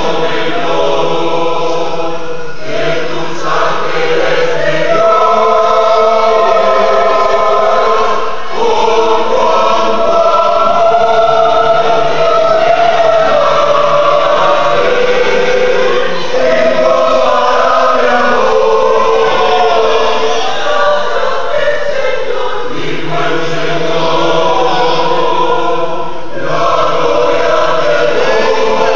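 Mixed choir of women's and men's voices singing a Spanish-language hymn in parts, held chords with short breaks between phrases every few seconds.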